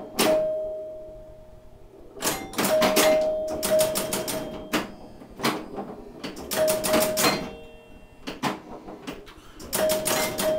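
1974 Williams Skylab electromechanical pinball machine in play: bursts of sharp mechanical clicks and clacks from its coils, switches and scoring mechanism, separated by pauses of a second or two, with a steady tone held through the busier bursts.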